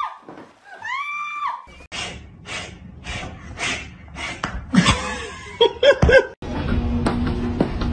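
Home organ sounding one steady note for about half a second as a cat presses a key with its body, then a person laughing in short breathy bursts about twice a second.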